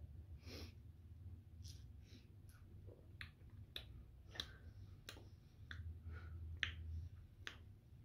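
Quiet mouth sounds of someone tasting a drink: scattered lip smacks and tongue clicks, a dozen or so, with a few soft breaths, over a low steady hum.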